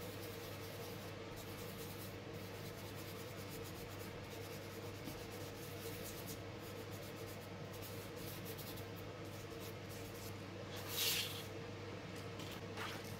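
Fingertips rubbing soft pastel powder into drawing paper in quick, repeated strokes, a faint dry scratchy rubbing. About eleven seconds in comes a brief louder papery swish, with a smaller one just before the end.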